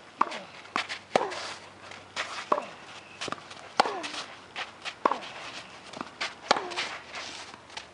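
A tennis rally on a hard court: sharp pops of racquets striking the ball and the ball bouncing, about every half second to second, with scuffs and short squeaks of tennis shoes on the court.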